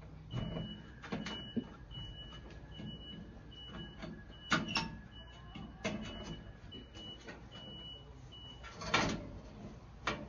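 Weber Spirit 210 grill's stainless-steel cabinet door knocking and clacking against the cabinet frame as its hinge bar is worked into the frame's holes: a series of sharp knocks, the loudest near the end. A faint high beep repeats about twice a second through most of it.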